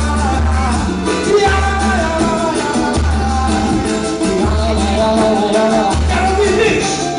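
Live pagode samba band playing, with voices singing over it and a deep bass beat pulsing about every second and a half.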